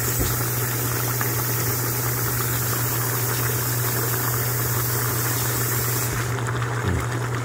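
Mutton chops and tomato wedges sizzling in an open aluminium pressure-cooker pot over a steady low hum. A high hiss cuts off about six seconds in.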